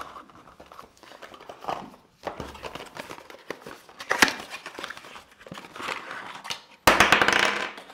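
Hands handling packaging: rustling and rubbing, a sharp click about four seconds in, and near the end a loud rasping burst of rapid clicks lasting about a second.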